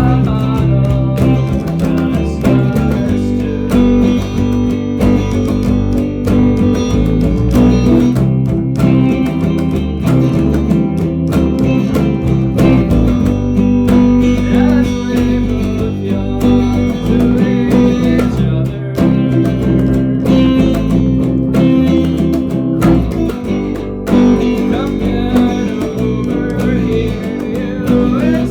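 A band playing a song live together: guitars over a bass guitar line, with regular drum hits, without vocals.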